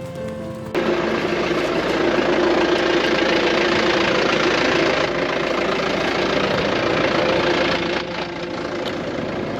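An engine running steadily and loudly, cutting in abruptly about a second in and dropping back near the end.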